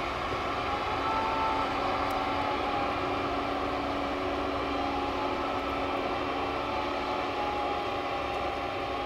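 PistenBully 600W Polar snow groomer grooming on its winch with the rear tiller running: a steady mechanical drone with a slightly wavering whine on top, the diesel engine itself hardly heard.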